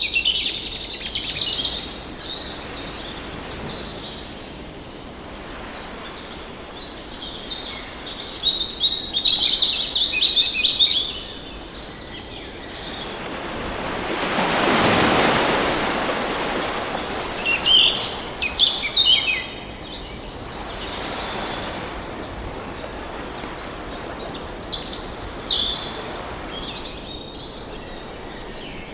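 Birds chirping and trilling in several bursts over the wash of ocean waves. One wave surges up and falls away about halfway through, and smaller swells follow.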